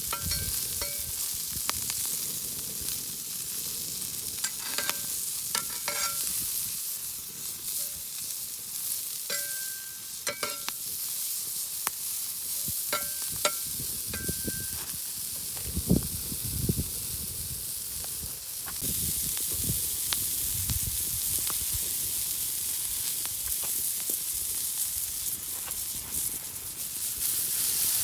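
Beef steak frying in a hot pan, sizzling steadily, with a few sharp clinks and scrapes of a utensil against the pan.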